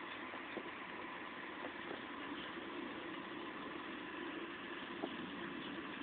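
Steady rain in a severe thunderstorm, an even hiss with a few light ticks.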